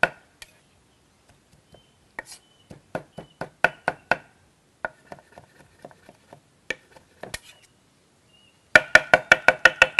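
Knife chopping beef into mince on a cutting board, in quick runs of sharp knocks with short pauses between; a fast run starts again about a second before the end.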